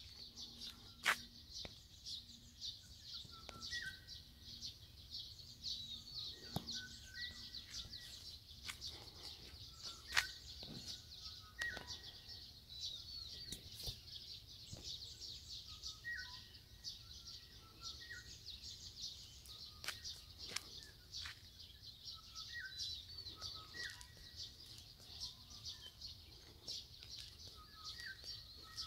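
A morning chorus of many small birds chirping and calling at once in a dense, high-pitched, overlapping stream, with scattered lower calls from other birds now and then. A couple of sharp knocks stand out, about a second in and near the middle.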